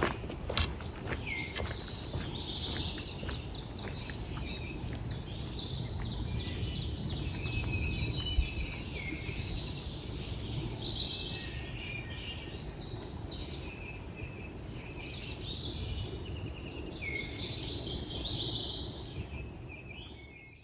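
Songbirds singing in the forest, one repeating a short, bright phrase every two to three seconds, with other short whistled notes between, over a steady low rumble.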